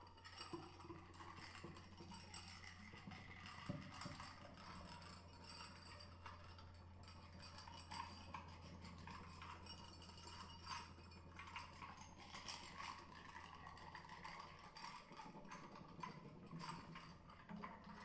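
Quiet, sparse percussion: small clicks, taps and rattles at uneven spacing, over a low electrical hum that stops near the end.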